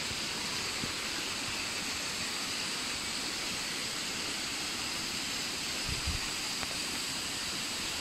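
Waterfall rushing steadily: an even hiss of falling water. A brief low bump about six seconds in.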